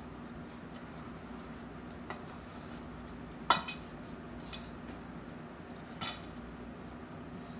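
A utensil knocking and scraping against a stainless steel mixing bowl while cookie dough is mashed by hand: a few scattered clinks, the loudest about three and a half seconds in with a short metallic ring, another about six seconds in.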